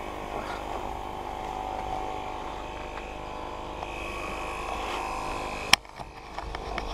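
A faint steady hum, then one sharp knock on the helmet-mounted camera near the end as the downhill bike is laid down and the camera is handled.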